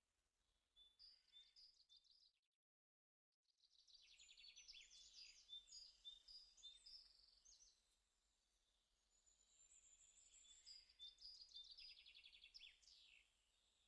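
Faint birdsong: repeated short high chirps and trills from several birds. There is a brief cut to dead silence about two and a half seconds in.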